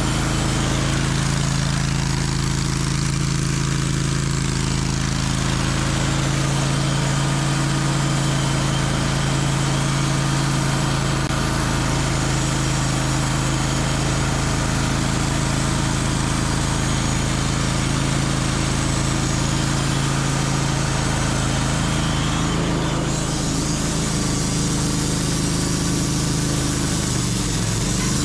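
Portable band sawmill running steadily, its engine hum even under a wide hiss, sawing a large maple log; near the end the engine pitch drops as it slows.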